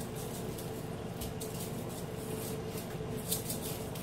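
Spice shaker jar shaken over raw chicken in a bowl: short, irregular rattles of dry seasoning granules, with a steady faint hum underneath.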